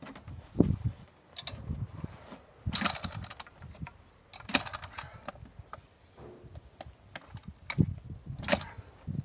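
Post hole being dug by hand: irregular dull thuds of a digging tool driven into soil, with sharp metallic clinks about three seconds in, about four and a half seconds in and near the end.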